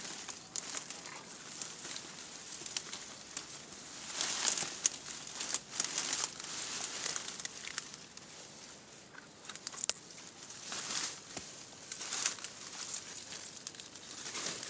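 Irregular rustling and crackling of leaves and brush, with scattered sharp clicks, as someone pushes through undergrowth.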